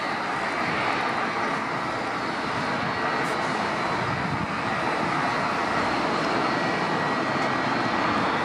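Jet engines of a four-engine Airbus A340 running as it rolls along the runway: a steady, even rush of noise with a faint high whine.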